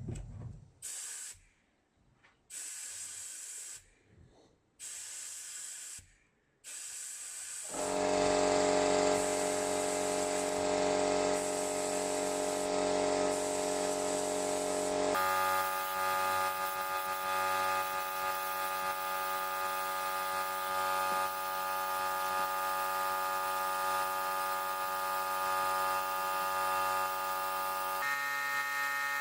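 A few short hissing bursts, then a small power tool's motor running steadily, changing pitch abruptly twice.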